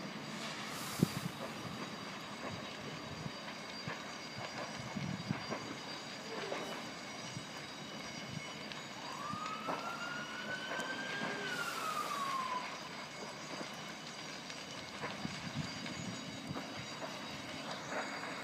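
An emergency vehicle siren sounds one slow wail, rising and then falling, from about nine to twelve seconds in, over a steady noisy background with scattered knocks and pops.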